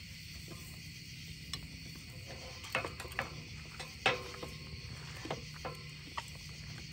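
Meat cooking on a wire grate over campfire coals: a steady sizzle broken by sharp crackles and pops, the loudest about four seconds in.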